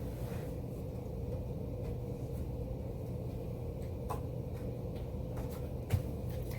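Steady low hum of room background noise, with a few faint clicks and a soft knock about six seconds in.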